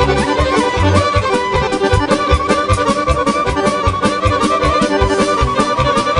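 Live Serbian folk band playing a kolo dance tune, the accordion leading over a steady, quick beat.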